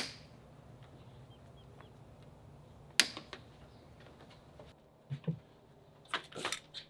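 A few sharp clicks and knocks of hardware being handled over a quiet background: one loud knock at the start, another about three seconds in, then a cluster of lighter taps and clicks near the end.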